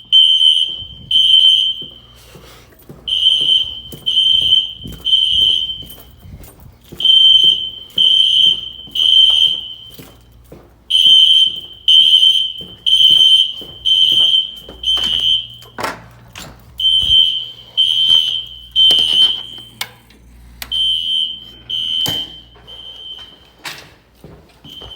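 Fire alarm horns sounding the temporal-three evacuation code: high-pitched electronic beeps in groups of three, each group followed by a short pause. The beeps grow fainter near the end.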